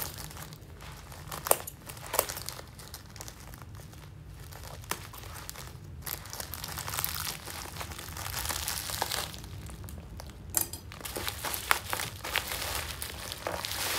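Plastic courier mailer bag and its packing tape crinkling and rustling as they are picked and pulled open by hand, with scattered sharp crackles; the crinkling gets busier in the second half.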